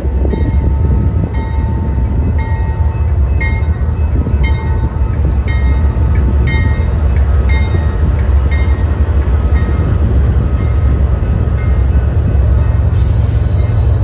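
General Signals type 3 electronic crossing bells dinging steadily, about once a second, over the low rumble of passing GE diesel locomotives: an ex-Santa Fe C44-9W leading an ES40DC. A hiss comes in near the end.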